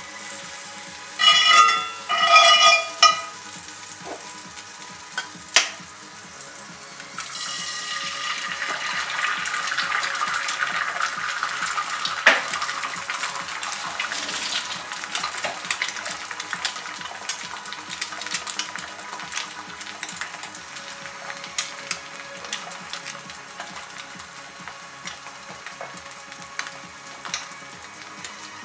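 Egg frying in butter in a cast iron skillet: a crackling sizzle with pops starts about seven seconds in, grows, then slowly eases off. Before it come two brief ringing metallic sounds and a sharp tap.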